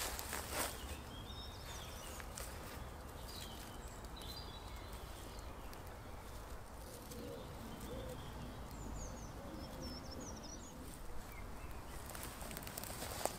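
Small birds chirping now and then over a faint outdoor background, with a pigeon cooing faintly about halfway through. A brief rustle of leaves comes right at the start.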